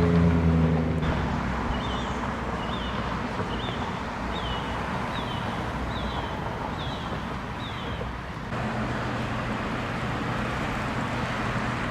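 Outdoor traffic noise. A loud passing vehicle fades out in the first second, and for several seconds in the middle a short high chirp repeats about every half second.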